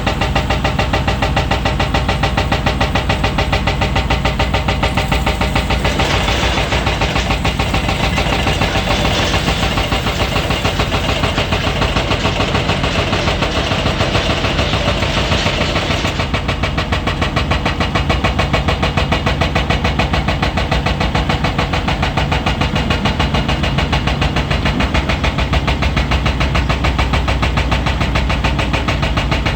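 Komatsu PC400 hydraulic excavator's diesel engine running steadily while it works, with a higher hiss or whine added for about ten seconds in the middle.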